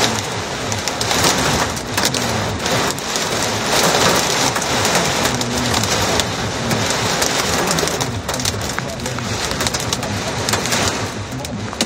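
Heavy wind-driven rain pelting a car's windshield and roof in a severe thunderstorm: a loud, steady downpour heard from inside the car.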